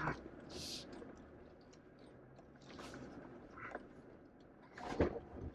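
Quiet cab noise of a 4x4 crawling slowly over a rough dirt track: a low rumble with scattered creaks, rattles and knocks, the loudest knock about five seconds in.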